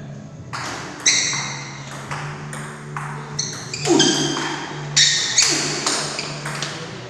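Table tennis rally: the ball clicking off the bats and the table in quick, uneven alternation, each hit ringing and echoing in a large hall.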